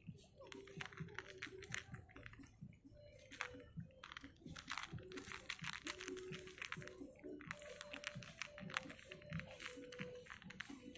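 A cat crunching dry kibble: rapid crisp crunches and clicks in runs, with brief pauses between mouthfuls.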